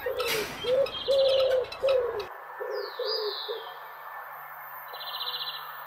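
Guinea fowl calling: a run of short, repeated calls, about two a second, that stops about three and a half seconds in. Higher, thin chirps and a brief buzzy trill from other birds come through above and after them.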